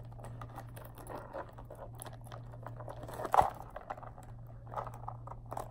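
Handling noise of small leather-and-canvas pouches being clipped together by their metal hardware: scattered light rustles and clicks, with one sharp click about three and a half seconds in, over a steady low hum.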